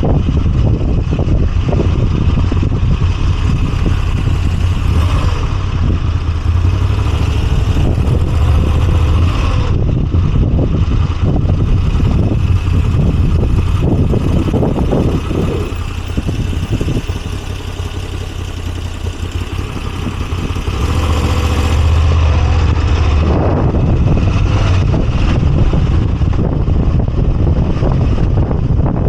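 Moto Guzzi V85TT's air-cooled transverse V-twin running under way. It pulls harder a few seconds in and again past the twenty-second mark, and eases off for a few seconds in between.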